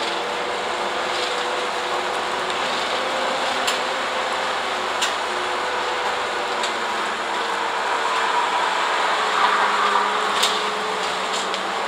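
Inside an Isuzu city bus under way: a steady drone of engine, drivetrain and road noise with a faint whine that wavers a little in pitch. Several short, sharp rattles from the cabin fittings stand out, a little louder near the end.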